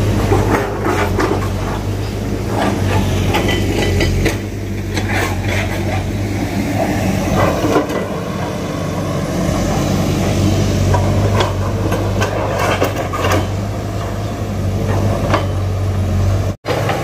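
Diesel engine of a backhoe running steadily under load, with repeated metallic clanks and knocks as it digs and levels ground.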